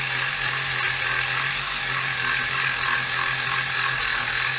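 Dspiae ES-A cordless reciprocating sander running steadily at full speed, its small sanding foot scrubbing paint on a plastic model fuselage.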